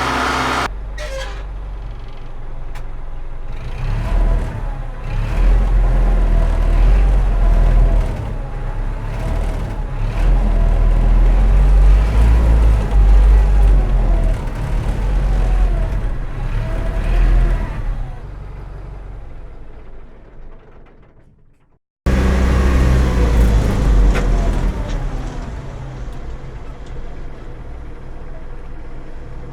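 Universal 650M tractor's 4.8-litre diesel engine running, with its pitch rising and falling. It grows louder, then fades away to nothing about 21 seconds in. After a brief break it runs again, starting loud and easing to a lower, steadier level.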